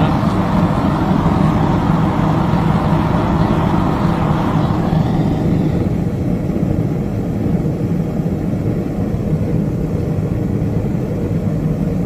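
Propane burner of a gas-fired melting kiln, just lit and burning steadily with a loud, even rush of flame. About five seconds in the sound turns duller as the kiln body and lid are set over the burner.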